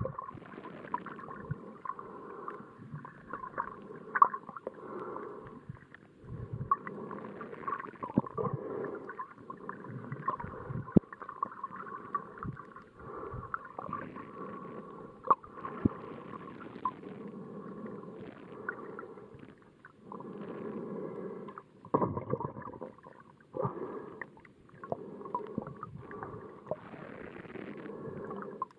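Muffled sloshing and gurgling of shallow water heard through a camera held underwater, swelling and fading every few seconds, with scattered sharp clicks and pops.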